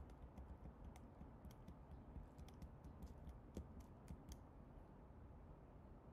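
Faint computer keyboard typing: a dozen or so light keystrokes and clicks in irregular bunches, stopping after about four seconds, over a low background hum.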